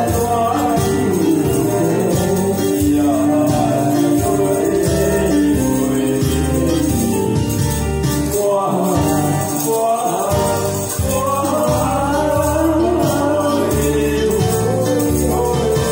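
A man sings a Taiwanese song into a microphone over a karaoke backing track, with jingling hand percussion shaken along.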